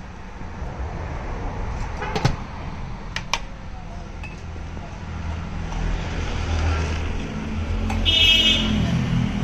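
Street traffic: a passing vehicle's engine rumble builds through the second half and is loudest near the end, with a brief high-pitched tone near the end. Two sharp clinks of glassware come about two and three seconds in.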